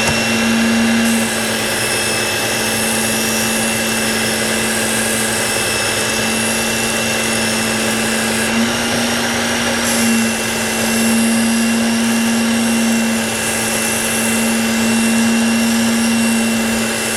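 Work Sharp Ken Onion Edition electric belt sharpener running steadily with its 6000-grit belt, a constant motor hum and high whine over belt hiss as a knife edge is honed on it.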